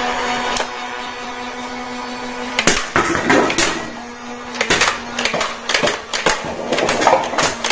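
Battery-powered toy gun's motor whirring steadily, then a quick irregular run of sharp clicks and snaps of toy shots starting about three seconds in.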